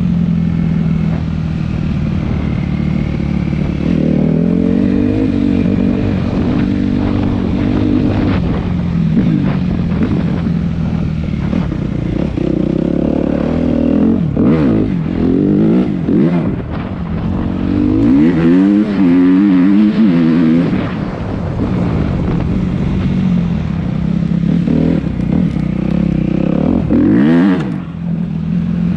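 Suzuki RM-Z250 dirt bike's four-stroke single-cylinder engine running hard under riding load, its pitch climbing and dropping again and again as the throttle is opened and closed through the gears.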